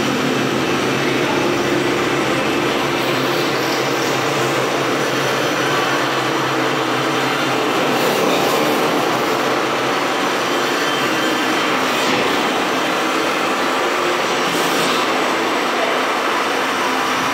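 Steady, loud rushing drone without a clear tune, with a few brief hissing swells.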